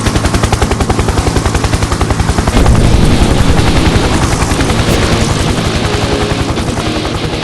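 Helicopter rotor chopping in a rapid, steady beat. It grows louder about two and a half seconds in, then slowly fades.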